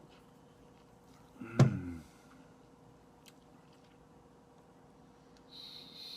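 A person makes one short, sharp vocal sound with a pitch to it, about a second and a half in. The room is otherwise quiet, and a steady hiss sets in near the end.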